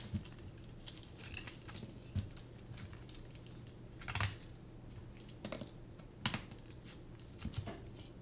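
Hands handling a LiPo battery, strap and carbon-fibre drone frame on a silicone work mat: irregular clicks, taps and rustling, with the sharpest knocks about four and six seconds in.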